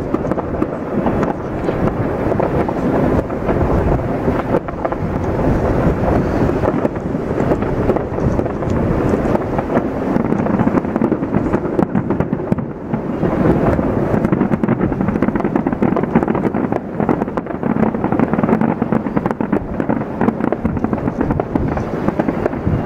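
Aerial fireworks display: a dense, unbroken barrage of many bangs and crackling bursts that run together into a continuous rumble.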